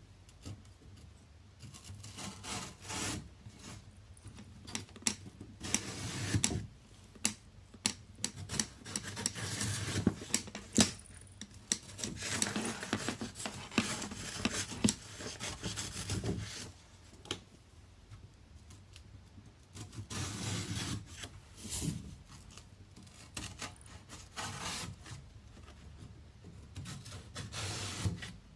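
Intermittent rubbing and scraping on wood and paper, with sharp taps and clicks in between, in stretches several seconds long with a quieter spell past the middle.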